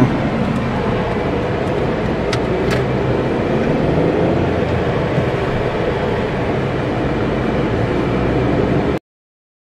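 Steady running noise of a car on the move, engine and tyre rumble heard from inside the cabin, with a couple of faint clicks about two and a half seconds in. The sound cuts off suddenly near the end.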